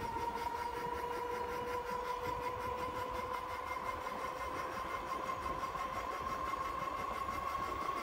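Stock 750 W e-bike electric motor whining steadily under full throttle, its pitch creeping slowly upward as the bike gains speed, over low wind and road rumble. The slow rise shows a weak drivetrain labouring toward its top speed.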